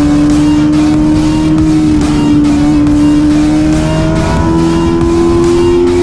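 Suzuki GSX-R600 inline-four engine held at high revs under load, its pitch steady and creeping slowly higher, with a small step up about two-thirds of the way in, over a constant rush of noise.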